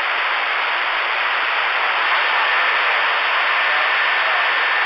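CB radio receiver hiss with the squelch open: steady static between transmissions. A faint steady whistle comes in about two seconds in.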